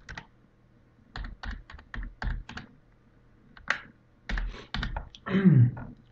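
Typing on a computer keyboard: a run of separate key presses. About five seconds in there is a louder, short sound that falls in pitch.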